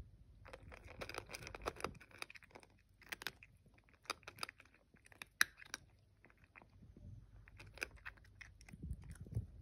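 A cat crunching dry kibble close to the microphone, eating from a stainless steel bowl: quick, irregular crunches in clusters with short pauses.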